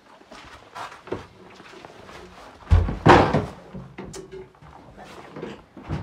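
A door bangs shut about halfway through, the loudest sound, with smaller knocks and steps around it.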